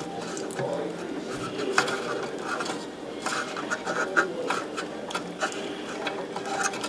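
Fingers handling a small screw and metal parts on an oven blower motor assembly: scattered light clicks and short scrapes at irregular times.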